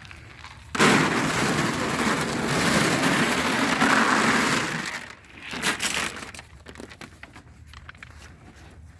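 Cattle feed pellets poured out in one go, a loud steady rattling rush that starts suddenly about a second in and lasts about four seconds, followed by a few knocks.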